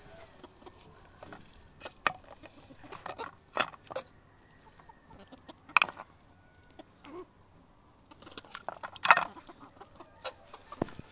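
Chickens clucking, with sharp clicks and scrapes of a knife against a metal pan as raw chicken is cut. The loudest clicks come about 6 and 9 seconds in.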